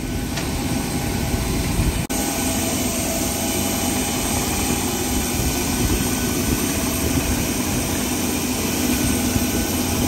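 Steady jet aircraft noise on an airport ramp: a loud, even rush with a low hum, broken by a brief dropout about two seconds in.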